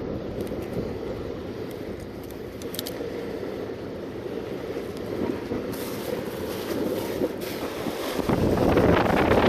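Wind buffeting the microphone over the wash of the sea, getting louder and gustier about eight seconds in.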